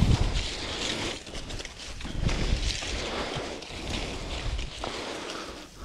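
Footsteps and rustling through long dry grass and brush as a person and a few sheep push through it, with low thumps on the body-worn microphone, loudest at the start and again about two seconds in.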